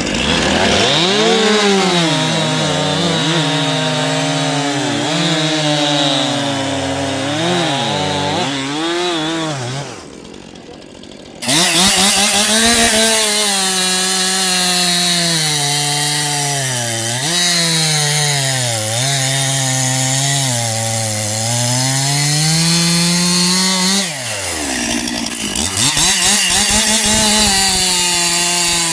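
Two-stroke chainsaws, a Stihl MS 261 C and a Husqvarna 455 Rancher, running at high revs and cutting wood, the engine pitch sagging under load and picking up again. The sound drops away briefly about ten seconds in, then a saw comes back in at full revs and keeps cutting, with a short dip in revs a little before the end.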